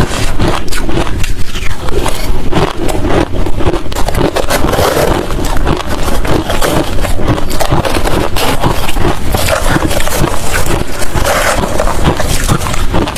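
Hard crushed ice and shaved-ice chunks being chewed: dense, continuous crunching with no pauses.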